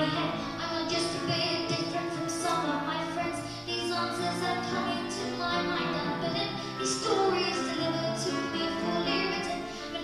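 A solo singer singing a song with piano accompaniment, the voice holding long notes over the piano.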